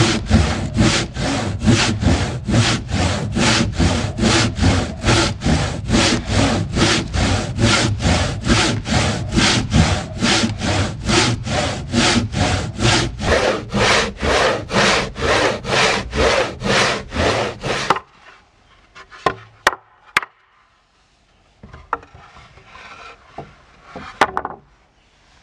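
Handsaw cutting a wooden board, a steady back-and-forth rasp at about two strokes a second that stops abruptly. A few light knocks and taps follow.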